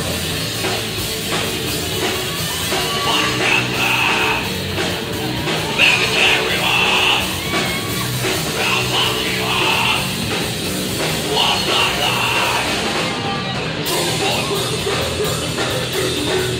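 Hardcore metal band playing live at full volume: distorted electric guitar, bass and drums, with yelled vocals in short phrases.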